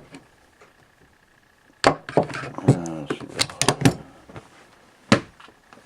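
Hard carry items being handled: a sharp click about two seconds in, a quick cluster of clicks and knocks about three and a half seconds in, and a single knock about five seconds in.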